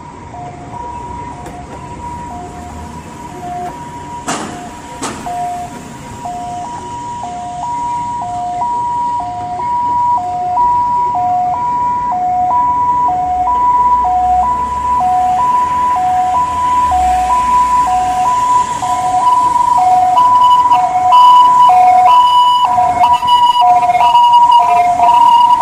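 Ambulance siren in hi-lo two-tone mode, alternating between a high and a low tone about once a second, growing steadily louder as the ambulance approaches.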